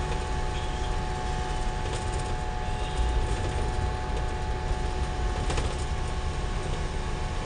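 Cabin noise of an Isuzu Almazora minibus under way: a steady low rumble of engine and road with a constant whine over it, and a few brief knocks or rattles.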